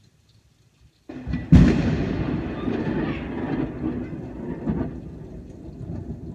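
Close thunderclap: a sudden sharp crack about a second and a half in, then a rumble that slowly dies away over several seconds.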